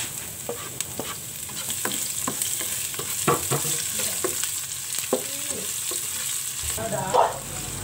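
Chopped red onions sizzling in hot oil with browned garlic in a wok, as a spatula stirs them with a dozen or so scrapes and taps against the pan.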